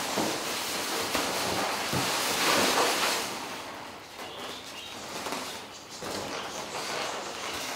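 Inflated long latex modelling balloons (524 size) rubbing and rustling against each other as a balloon cluster is handled and turned, loudest about two to three seconds in.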